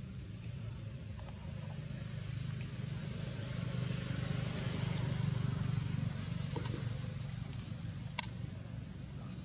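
Low rumble of a vehicle engine that swells to its loudest around the middle and eases off, over a steady high hiss, with two sharp clicks in the second half.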